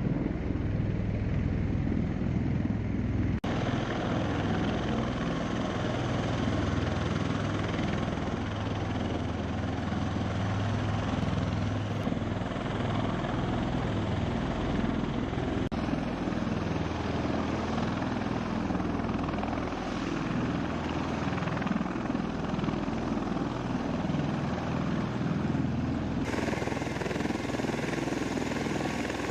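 V-22 Osprey tiltrotor running steadily, its engines and big proprotors making a loud, continuous drone with a low beat. The sound changes abruptly three times, about 3.5, 16 and 26 seconds in.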